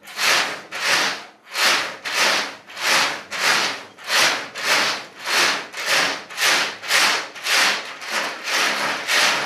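A large 3D-printed fabric of interlocking plastic links is pushed and pulled by hand across a table. The links clatter and rustle in a steady rhythm of about two swells a second.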